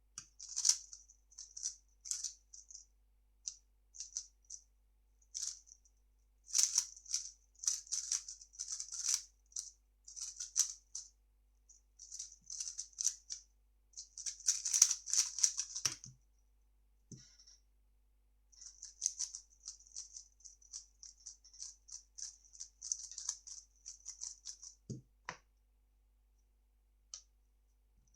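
A 3x3 speedcube turned rapidly by hand: fast runs of plastic clicking and clacking as the layers snap round, in two long stretches with a short pause between. Each stretch ends in a dull thump.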